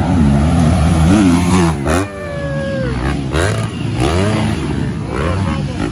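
Off-road dirt bike engines revving, their pitch rising and falling again and again with the throttle as the bikes climb. A sharp crack about two seconds in.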